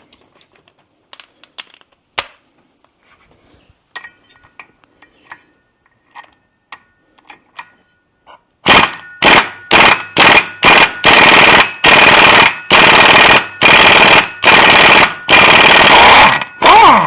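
Impact wrench hammering in a series of short trigger bursts, about a dozen in eight seconds, starting about halfway in after faint tool clicks, to break loose a stubborn Loctite-secured bolt.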